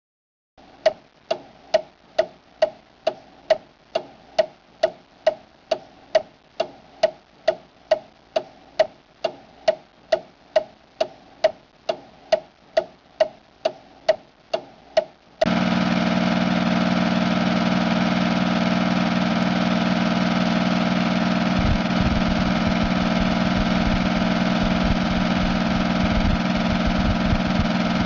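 A clock ticking, about two ticks a second, for roughly fifteen seconds. It cuts off abruptly to a steady diesel engine hum, with some uneven low knocking in its last few seconds.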